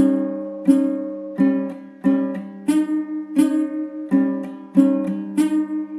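Background music of strummed plucked-string chords, a new chord struck roughly every three quarters of a second and left to ring.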